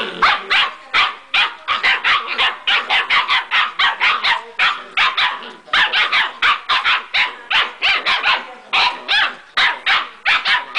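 Old English Sheepdog puppies barking at each other in a fast, unbroken run of high-pitched yaps, about three or four a second.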